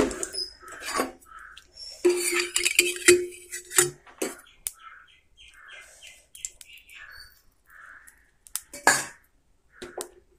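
Scattered clinks and knocks of a metal pan and utensils on a gas stove, with a bird chirping a quick run of short notes in the background about halfway through.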